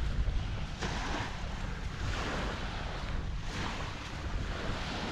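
Small waves washing onto a beach, surging several times, with wind rumbling on the microphone.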